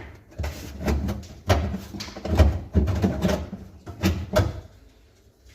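Several irregular knocks and clunks as a Duster's taillight bezel is worked loose and pulled off the car's rear panel after its nuts have come off the studs.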